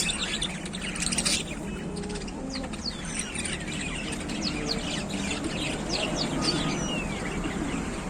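African lovebirds chirping: a flurry of short, quick, high chirps, thickest in the middle, over a steady low hum. A brief clatter about a second in.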